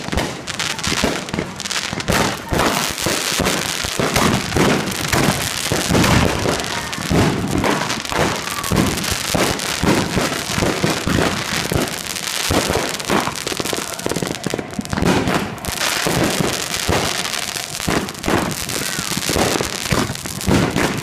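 Fireworks finale barrage: aerial shells bursting one after another with no pause, many bangs overlapping with crackling.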